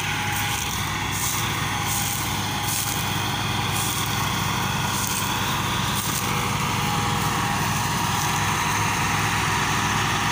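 Diesel engines of two farm tractors, an Al-Ghazi and a Massey Ferguson, running steadily under load while pulling a heavily loaded sugarcane trolley.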